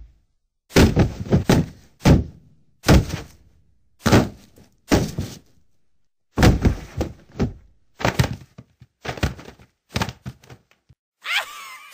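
A series of heavy percussive thuds, each ringing out briefly: about one a second at first, then coming quicker and lighter near the end.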